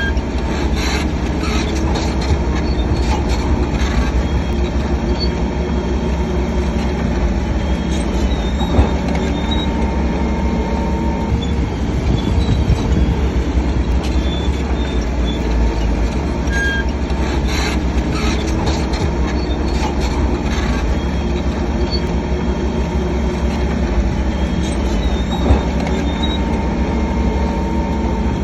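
Crawler bulldozer at work: the diesel engine runs steadily under a continual rumble, with repeated metal clanks and thin squeals from the steel tracks.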